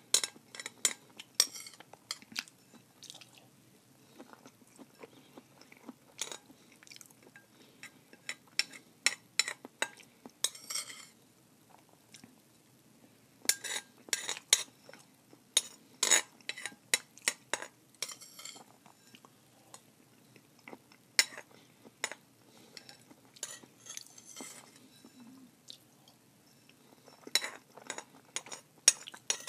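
A utensil clinking and scraping against a bowl: irregular sharp clicks in clusters, separated by quiet gaps of a second or two.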